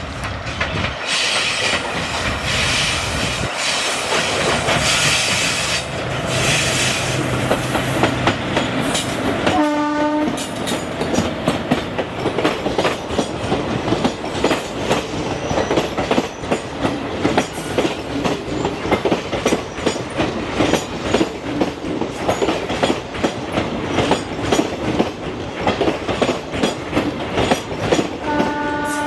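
Indian passenger train passing close by: its wheels clatter rapidly over the rail joints. The locomotive's horn sounds briefly about ten seconds in and again near the end.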